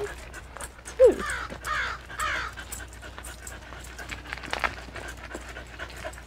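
A short, loud falling cry about a second in, followed by a quick run of harsh calls like a crow's caws, over footsteps and stroller wheels crunching on a gravel path.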